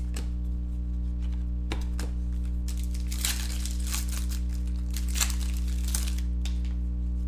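Foil trading-card pack being torn open and crinkled by hand: a few light crackles, then two longer spells of crinkling, the louder one from about three to four seconds in. A steady low electrical hum runs underneath.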